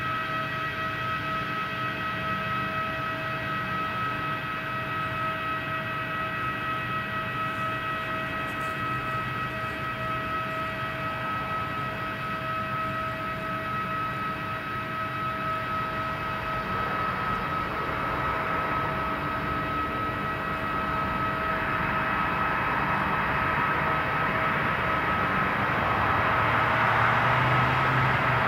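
Boeing 737-800's CFM56-7B turbofans landing, with a steady whine of several fixed tones. A broad rushing roar builds through the second half and grows louder during the rollout on the runway.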